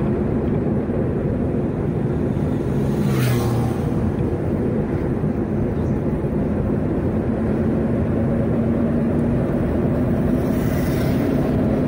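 Steady engine drone and road noise of a vehicle driving along a road, heard from inside, with brief rushing sounds about three seconds in and near the end.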